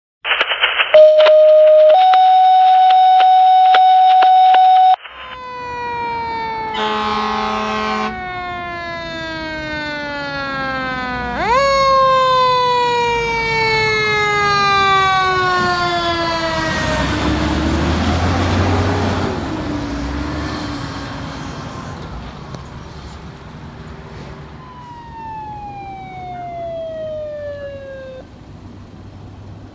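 Fire trucks on an emergency response. A loud steady tone fills the first five seconds, then a siren falls slowly in pitch, with a short horn blast about seven seconds in. The siren rises quickly and falls again while the ladder truck's engine goes past, and a second siren falls near the end.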